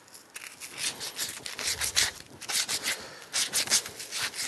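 Emery cloth scrubbing a brass pipe fitting by hand in rapid back-and-forth strokes, with a short pause about three seconds in. The metal is being cleaned bright to prepare it for tin soldering.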